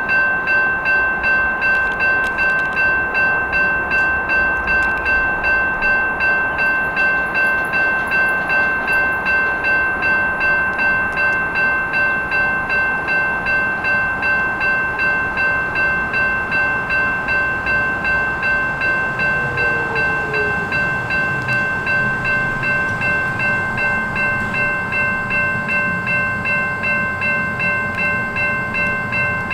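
Grade-crossing warning bell ringing in an even, rapid pattern, about two strokes a second. A Cleveland RTA rapid transit train approaching on the track, its low rumble growing over the last ten seconds.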